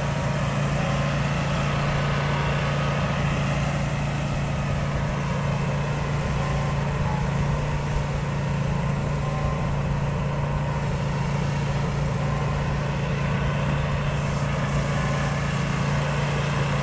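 Pressure washer engine running steadily, its pitch and level unchanging throughout.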